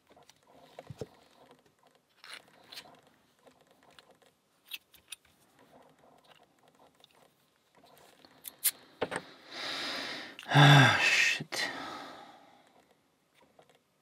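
Small clicks, taps and rattles of brass padlock lock-core parts and a key being handled. About ten seconds in, a louder breathy noise with a short voiced note lasts a couple of seconds.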